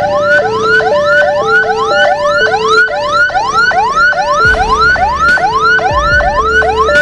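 Two emergency sirens from an ambulance escort sounding together, loud. One is a fast rising yelp, about three sweeps a second. The other is a two-tone hi-lo siren that switches pitch about once a second.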